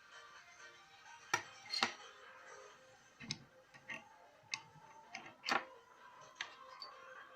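Sharp, irregularly spaced clicks and clacks of a Glock 9 mm pistol's parts being handled and taken apart, about eight in all, over quiet background music.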